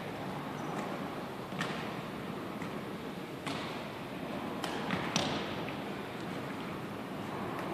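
A few short, sharp slaps and thuds from a football being caught and sneakers on a hardwood gym floor, scattered over a steady room hiss.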